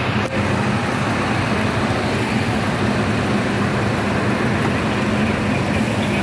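Heavy trailer trucks' diesel engines running with a steady low drone, over the hiss of road traffic on a wet street.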